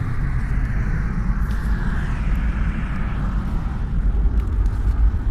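Steady road and wind noise inside a moving car's cabin: a low rumble of tyres on the road with a hiss of air over the body, the car rolling along in neutral with the engine only idling.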